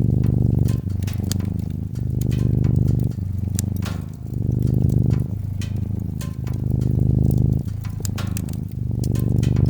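A cat purring steadily in a slow in-and-out rhythm, about one swell a second, over a wood fire crackling with frequent sharp, irregular pops and snaps.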